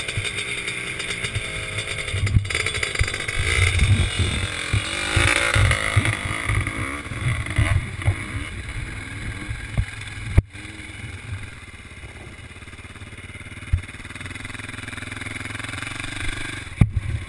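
Dirt bike engine running under throttle with the pitch rising and falling as it rides across sand, then a sharp knock about ten seconds in, after which the engine settles to a quieter idle.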